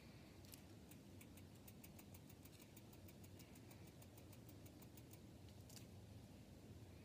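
Near silence, with a run of faint quick clicks, several a second, from about half a second in to about five seconds in, and one more click near the end.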